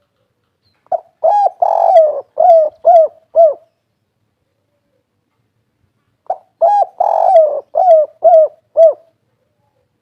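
Spotted dove cooing its 'kuk 3' song twice, about five seconds apart. Each phrase is a run of about six arching coos: a short lead note, a longer drawn-out coo, then a few short clipped notes.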